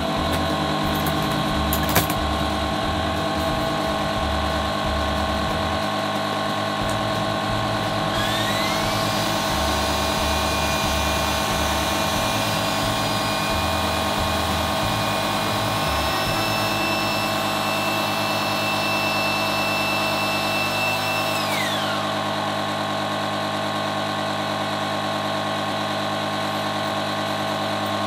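Small electric air pump running steadily with a motor hum, inflating a foam-filled self-inflating camping mattress. A higher whine comes in about eight seconds in and drops away about three quarters of the way through.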